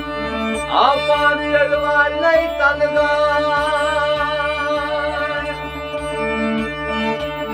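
Kashmiri Sufi song: a man sings long, wavering held notes over a harmonium's sustained chords and drone, with a plucked string instrument and a steady low beat about twice a second.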